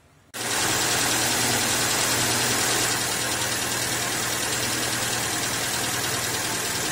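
Car engine idling steadily with the radiator cap off, a low hum under a hiss, starting suddenly about a third of a second in.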